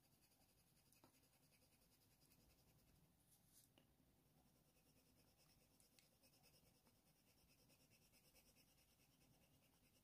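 Very faint scratching of a Faber-Castell Polychromos coloured pencil stroking across smooth hot-press watercolour paper, with a few soft ticks.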